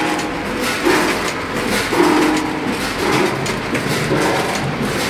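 Factory conveyor line running: steady machine noise with a recurring clatter about once a second, from the white modular plastic belt conveyor and the machinery along the line.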